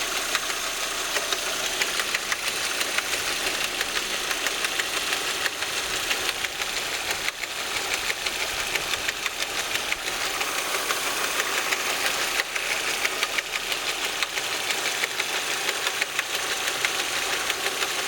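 Audi A4 1.8-litre four-cylinder engine running steadily with a fast, even ticking clatter over the engine note. The noise comes from the two worn sprockets that drive the camshaft chain.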